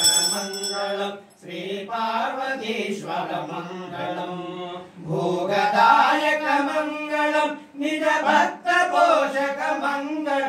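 Voices chanting a devotional hymn to Shiva in a sung, melodic line. A bell rings at first and fades out about a second in.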